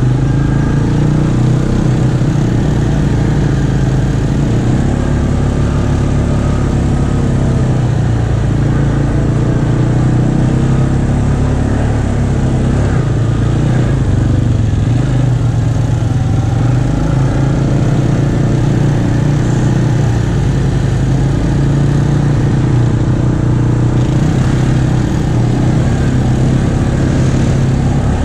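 Off-road vehicle engine running steadily at trail-riding speed on a dirt track, its pitch shifting a little as the throttle changes.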